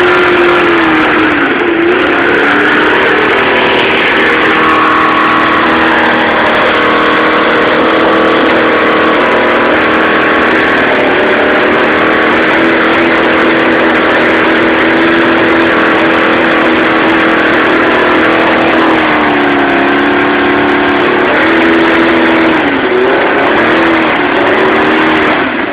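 Kawasaki motorcycle engine running loud on a test run, its revs sagging and picking back up a few times, near the start and again after about twenty seconds.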